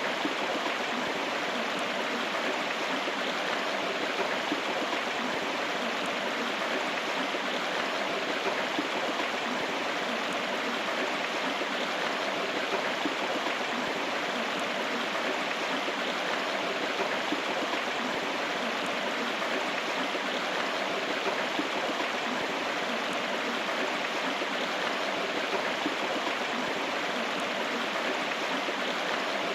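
River water flowing over rocks in a steady, unbroken rush.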